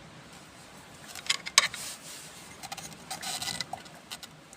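Small hard parts being handled: a few sharp clicks, the loudest about a second and a half in, and a brief rustle and rattle a little after three seconds in.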